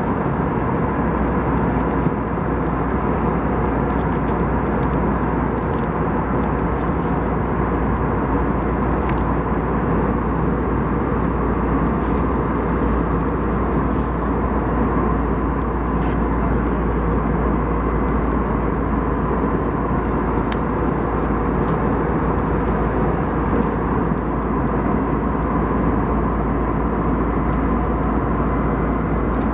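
Steady drone of the Airbus A320's engines and cabin air, heard inside the passenger cabin, with a few faint rustles and ticks of magazine pages being turned.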